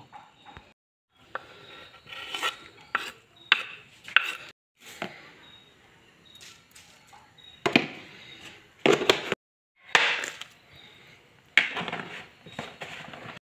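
Food-preparation clatter in short spliced clips: sharp knocks and clinks of a knife on a wooden chopping board and of ingredients and utensils against a cooking pan, broken by several abrupt silences.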